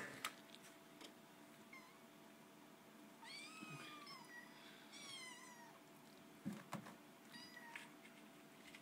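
Kittens mewing faintly: several high, falling mews in bunches about three and five seconds in, and a fainter one near the end. A couple of light knocks come about six and a half seconds in.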